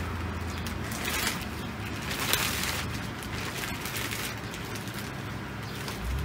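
Clear plastic wrapping crinkling and rustling in irregular bursts as a paddle board hand pump and its hose are pulled out of it, with one sharp crackle a little over two seconds in.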